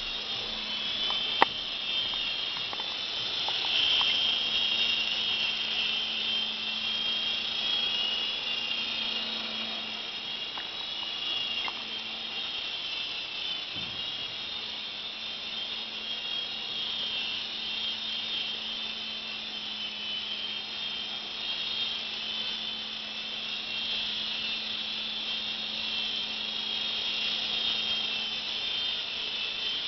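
Micro Mosquito coaxial micro RC helicopter in flight: a steady high-pitched whine from its small electric motors and twin rotors, swelling and easing a little as it manoeuvres. A single sharp click about a second and a half in.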